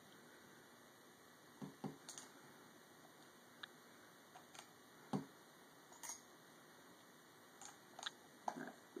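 Scattered faint clicks and taps of small metal parts being handled and fitted on a paintball marker, about ten over the stretch, the loudest about five seconds in.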